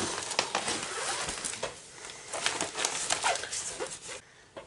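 Plastic sleeves crinkling and rustling, with scattered clicks from a metal clip hanger, as rolled diamond paintings are lifted and carried away. A dog whimpers in between.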